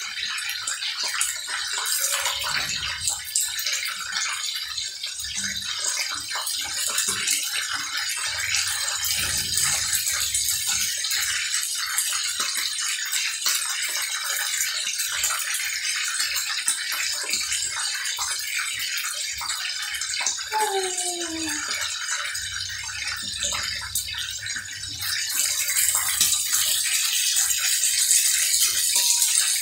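Chicken pieces shallow-frying in oil in a frying pan: a steady sizzle that gets louder about 25 seconds in.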